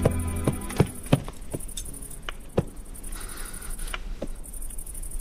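A horse walking up, its hoofbeats a run of sharp, uneven knocks about two or three a second that die away after about three seconds. Film score music fades out just at the start.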